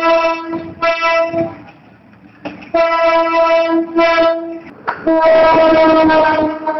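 Diesel locomotive air horn, that of a PNR GE U15C, blown in a pattern of separate blasts: a blast ending just after the start and a short one, a pause, a longer blast and a short one, then a long blast about five seconds in. Train noise rises under that last blast.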